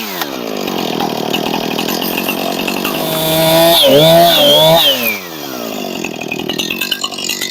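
Two-stroke chainsaw revving. Its speed drops from full throttle right at the start and it runs steadily, then it revs up high again about three and a half seconds in and falls back to a lower, quieter speed about five seconds in.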